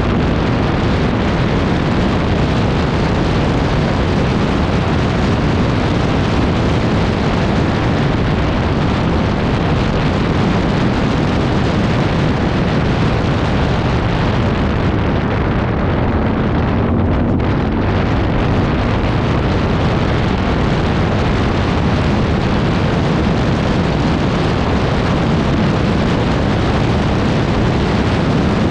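ATV running under way, its engine mixed with heavy wind buffeting on the microphone: a loud, steady, rumbling roar.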